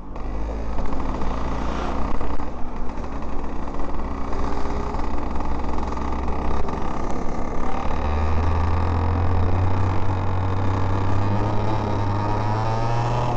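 Onboard sound of a Parilla two-stroke kart engine running at low revs, its pitch stepping up about eight seconds in and climbing steadily toward the end as the kart accelerates.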